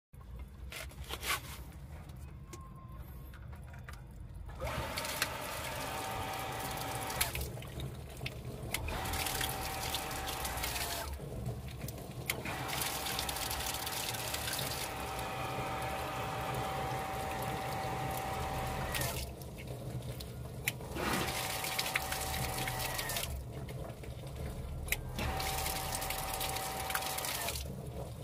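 Water rushing through PVC pipework at an electric booster water pump and splashing out, with a steady whine in several stretches. The sound breaks off and starts again about five times.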